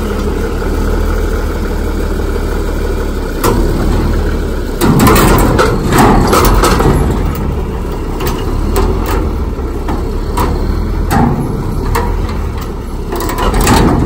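Farm tractor engine running, then pulling harder about five seconds in as it drags a mud-mired metal cattle feeder wagon free on a chain. Repeated clanks and knocks come from the chain and the feeder's steel body as it jerks loose.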